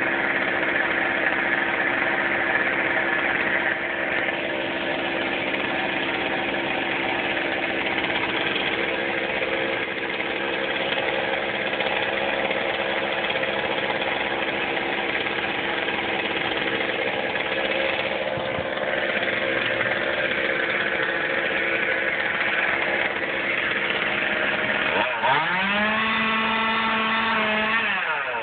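Two-stroke chainsaw idling steadily, then revved up sharply about 25 seconds in and held at high speed for a few seconds before dropping back.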